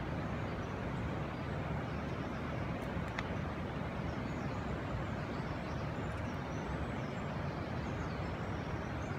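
Steady low rushing outdoor noise, such as wind or distant flowing water, with faint high bird chirps about halfway through and a single sharp click about three seconds in.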